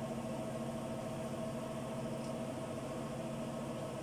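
A steady mechanical hum, with a few constant tones and no change in level.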